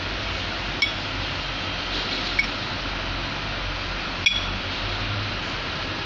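Metal hydraulic pump parts clinking as a valve plate is fitted to the pump housing by hand: three sharp, short metallic clinks, each with a brief ring, spread over a few seconds against a steady background hiss.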